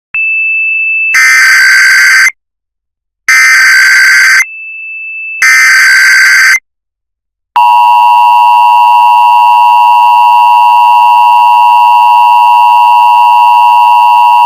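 Emergency Alert System tones: three roughly one-second bursts of buzzy SAME header data about a second apart, with a short steady high beep before the first and between the second and third. About seven and a half seconds in, the loud, steady two-tone EAS attention signal begins. Together they announce a flash flood warning.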